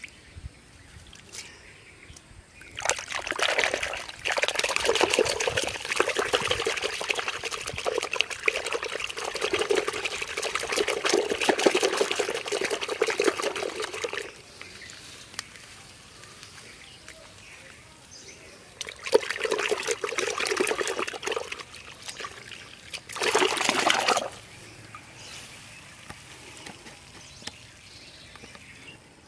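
Water pouring and splashing in three spells: a long one of about eleven seconds, then two short ones.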